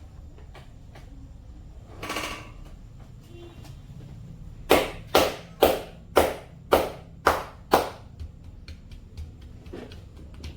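Seven sharp percussive massage strikes in quick succession, about two a second, after a brief rustle about two seconds in.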